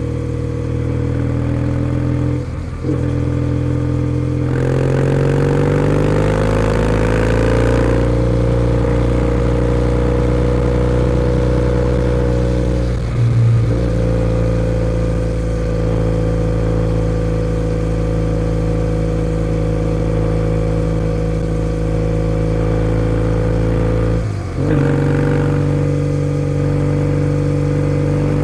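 Kawasaki W650's air-cooled parallel-twin engine running through a POSH W1 full exhaust while riding. The engine note climbs under acceleration between about four and eight seconds in and then holds steady. It breaks briefly three times as gears change.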